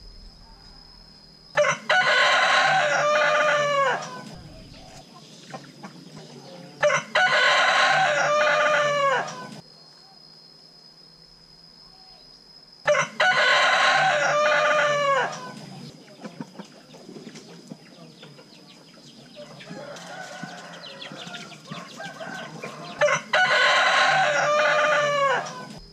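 Rooster crowing, four loud crows each about two and a half seconds long, ending in falling notes, with a fainter crow in between as if from a second bird farther off. A thin steady high-pitched whine runs underneath.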